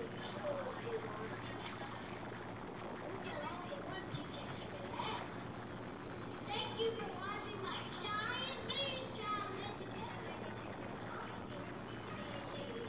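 A loud, unbroken high-pitched steady tone, like an insect's continuous trill or an electronic whine, with faint voices underneath.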